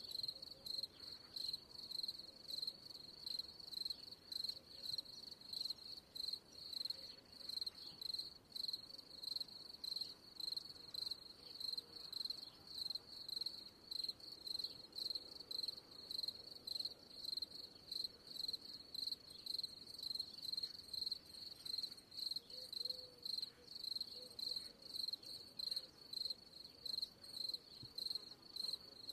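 Crickets chirping steadily, a high chirp repeating about twice a second.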